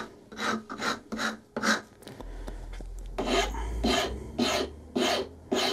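Hand file rasping across the rounded end of a small wooden block in quick strokes, about two a second, with a short pause midway, shaping the curve.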